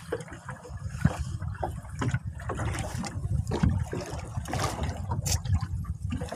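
Water sloshing and slapping irregularly against the hull of a small wooden boat at sea, over a steady low rumble.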